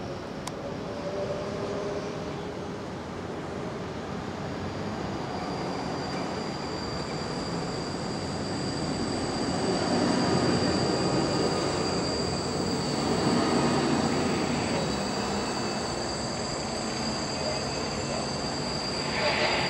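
Freight train of tank wagons behind a twin-section ET40 electric locomotive rolling past, its wheels rumbling on the rails with a steady high-pitched wheel squeal. The rumble swells louder about ten seconds in and again a few seconds later, with a brief loud burst near the end.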